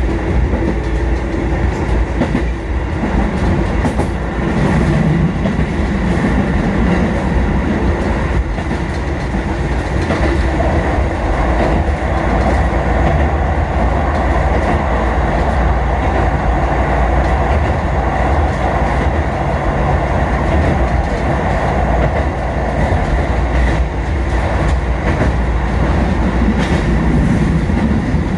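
Kotoden train, a four-car 1080 and 1100 series set, running steadily between stations as heard from inside the cab-end car: a continuous rumble of wheels on rail with light clicking over rail joints.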